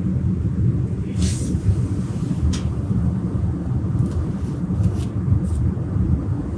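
Steady low shop rumble with a few light scrapes and clicks as the turbocharger and its mount are handled against the engine bay, the clearest a scrape about a second in.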